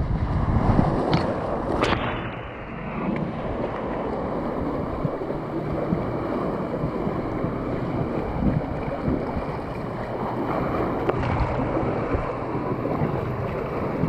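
Water rushing along a water slide channel as a rider slides down through it, a steady splashing rush with a couple of sharp knocks about one and two seconds in.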